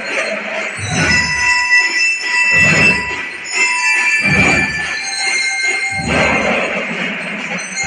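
Music played loud, with a deep beat about every one and a half to two seconds under held, high, bell-like tones.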